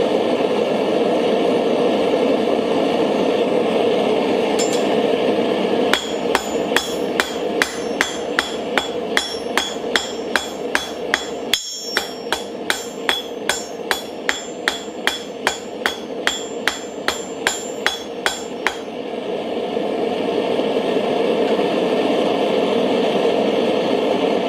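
Hand hammer striking hot steel on an anvil, about two blows a second for some thirteen seconds starting about six seconds in, each blow with a bright anvil ring. Underneath, the steady rushing noise of a lit Mr. Volcano Hero propane forge burner running.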